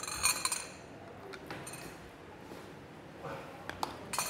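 Porcelain tableware clinking, a spoon or cup knocking against a small bowl. The first strike rings on briefly in the first half second, then a few lighter clinks follow.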